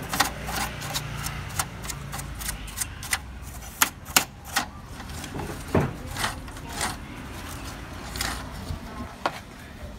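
Paintbrush scrubbing the dust out of the inside of an HP Color LaserJet Pro M177fw printer, its bristles and handle flicking and knocking against the plastic paper guide and roller housing in irregular sharp clicks and taps. A cloth wipes over the same parts near the end.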